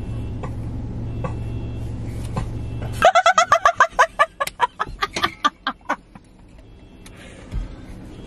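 A woman laughing hard in quick, rapid bursts, starting suddenly about three seconds in and fading out by about six seconds; before it, a steady low hum inside a car.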